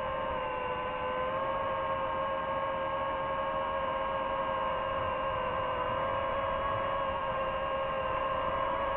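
DJI FPV drone's motors and propellers whining steadily in flight, several tones held together, as picked up by the drone's own microphone. The pitch dips slightly about half a second in and comes back up a moment later.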